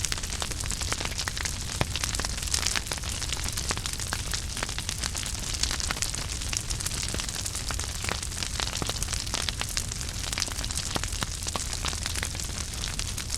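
Wood fire crackling in a fireplace, with frequent irregular pops and snaps over a steady hiss and low rumble of the flames.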